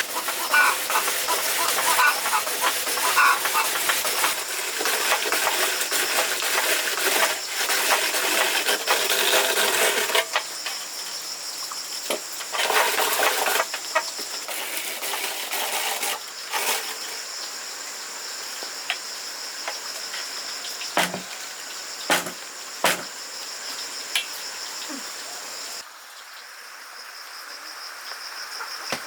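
Chickens clucking over a steady hiss, loudest in the first part; later the hiss drops and a few sharp knocks sound close together.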